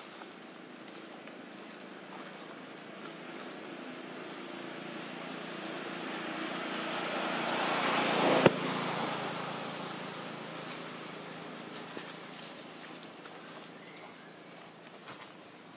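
Steady high-pitched insect chorus in forest undergrowth. A broad rushing noise swells over several seconds to a peak about halfway through, where there is one sharp click, and then fades away.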